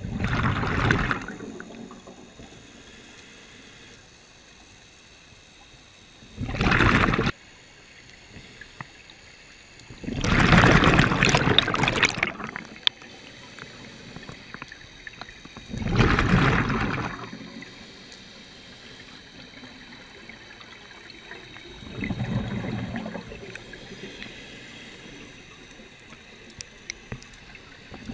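Scuba diver's breathing through a regulator underwater: a loud burst of exhaled bubbles every five to six seconds, with a low hiss between breaths.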